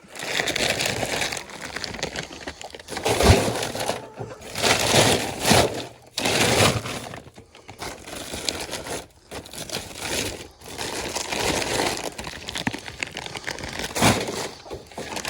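A bag of chicken scratch grain being handled, with irregular bursts of crinkling and rustling noise lasting about half a second to two seconds each.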